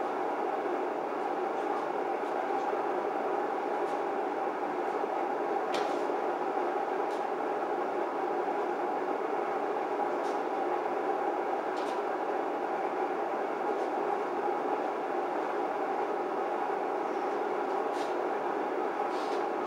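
A steady rushing noise throughout, with a few faint scattered taps.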